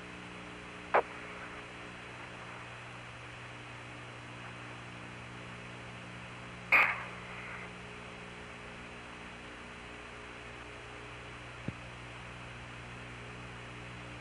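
Open Apollo 15 air-to-ground radio channel with no one talking: a steady hiss and low electrical hum, broken by a short sharp radio burst about a second in, a stronger brief burst about halfway through, and a faint click near the end.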